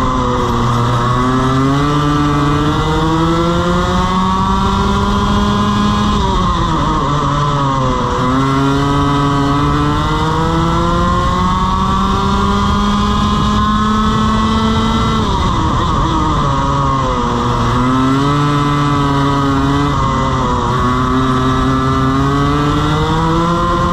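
Two-stroke TaG kart engine heard onboard at race pace. Its note climbs steadily through each acceleration and drops sharply when the driver brakes for a corner. It happens about four times: near the start, at about six to eight seconds, around fifteen seconds, and around twenty seconds in.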